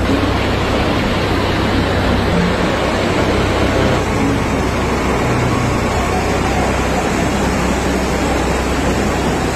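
Steady rushing noise of heavy water: rainwater pouring off a station roof onto a platform, then a suburban electric local train moving through floodwater over the tracks, with the sound changing slightly about four seconds in.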